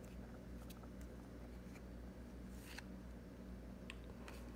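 Faint ticks and slides of Topps baseball cards being flipped through a stack by hand, one card moved to the back at a time, over a steady low hum.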